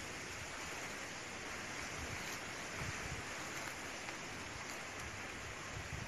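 Steady outdoor hiss of wind moving through the trees and bushes, with low rumbling from wind on the microphone.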